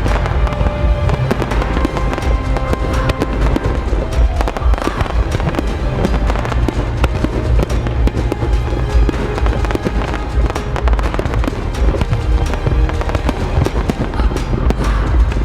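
Fireworks bursting and crackling in quick succession, over a music soundtrack.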